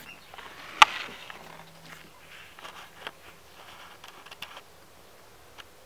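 Newborn Old English Sheepdog puppies nursing: soft snuffling and rustling against fur, with scattered small clicks and one sharp click about a second in.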